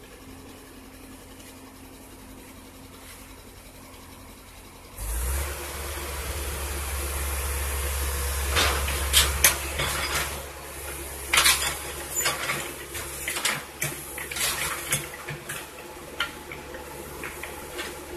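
Wheeled excavator's diesel engine running low, then revving up abruptly about five seconds in, followed by repeated sharp metallic clanks and scrapes of the steel bucket against the road.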